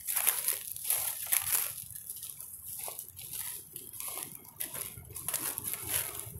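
Dry fallen leaves crunching and rustling in short, irregular bursts.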